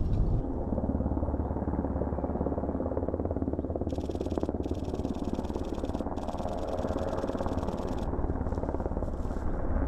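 A steady low engine rumble with a rapid even pulse, and hiss that comes and goes in the highs from about four to eight seconds in.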